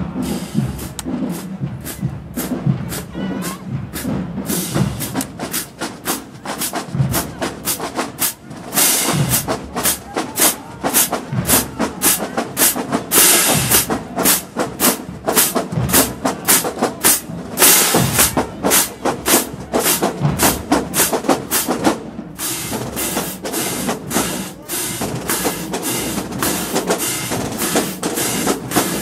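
Marching band drumline playing a fast cadence: dense, rapid snare and bass drum strokes, louder through the middle and easing off a little about two-thirds of the way through.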